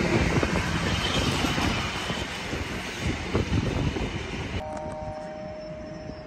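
Polregio EN57 electric multiple unit rolling away along the platform close by, its running gear and wheels on the rails making a dense rumble that slowly fades. About four and a half seconds in the sound cuts abruptly to a much quieter station scene with a few steady hum tones.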